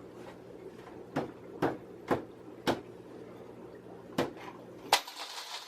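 Irregular knocks and clacks of wooden boards and tools being handled during assembly of a wooden rack, about seven in all. A steady low hum under them stops near the end.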